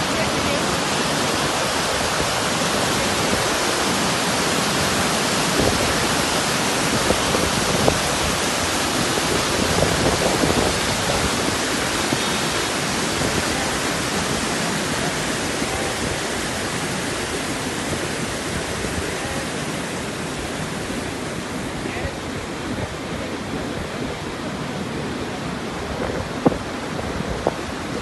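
Waterfall rushing steadily, a dense even noise of falling water that turns slightly softer and duller in the second half.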